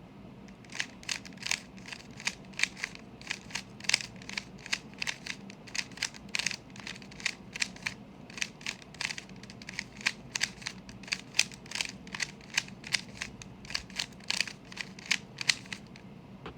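Rubik's Cube being turned rapidly by hand in a timed speedsolve: a fast, irregular run of sharp plastic clicks and clacks, several a second, starting about half a second in and stopping abruptly near the end as the solve finishes.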